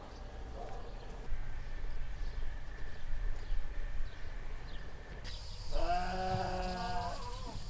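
A farm animal bleating: one long, slightly wavering call of about a second and a half, starting about six seconds in.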